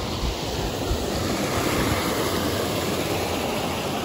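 Steady rush of water pouring over a waterfall and down a series of cascading rock pools.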